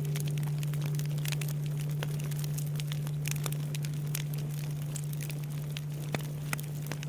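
Bonfire crackling with sharp irregular pops, under the long low hum of a large Buddhist temple bell (bonshō) fading slowly after a strike.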